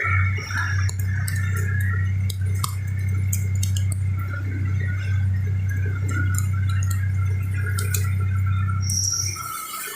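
Drilling machine running with a steady electric hum that starts abruptly and cuts off near the end, with scattered light clicks and ticks over it.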